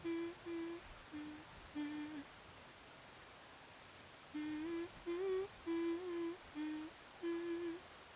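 A voice humming a slow, gentle lullaby tune to send someone to sleep: short held notes in phrases, with brief pauses between them.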